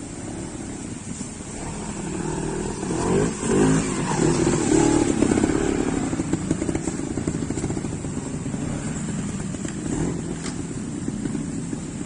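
Trials motorcycle engine revving in short throttle bursts as the bike climbs a section close by. It is loudest a few seconds in, then eases off.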